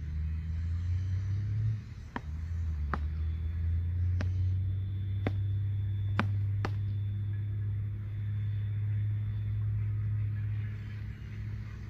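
Beach tennis paddles striking the ball in a volley rally: six sharp pops at uneven gaps of about a second, all in the first seven seconds, over a steady low rumble.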